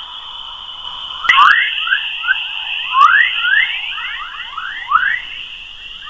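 'Sound of Earth' from space: electromagnetic emissions converted into audio. It is a stream of quick rising chirps, several a second, over a steady high tone that gets louder about a second in.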